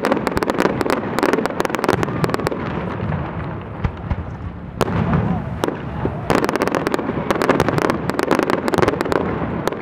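Fireworks display: aerial shells bursting and ground-fired effects crackling in rapid volleys of bangs and cracks. The volleys thin out in the middle and build again about six seconds in.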